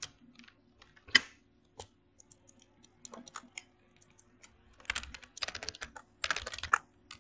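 Typing on a computer keyboard: scattered keystrokes, then quick runs of keys between about five and seven seconds in.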